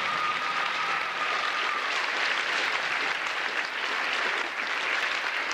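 Crowd applauding, a dense steady patter of many hands clapping, with one held high tone over the first two seconds.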